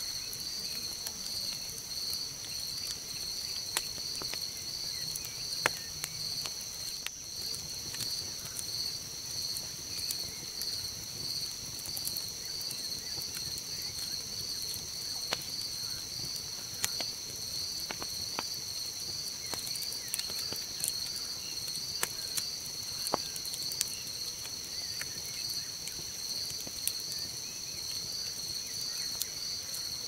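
A steady night chorus of crickets, a high pulsing trill, with scattered sharp crackles and pops from a campfire burned down to glowing embers.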